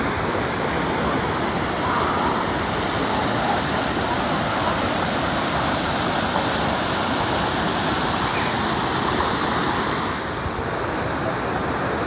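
Mountain stream cascading over rocks: the steady rush of white water.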